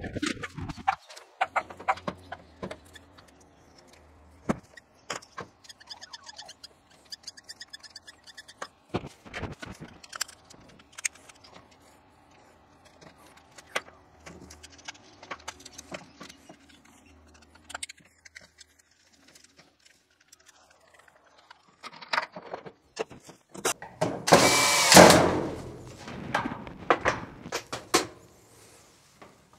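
Clicks and taps of a plastic outdoor power point and its wires being handled and fitted to the wall. Near the end there is one loud burst of noise about a second long.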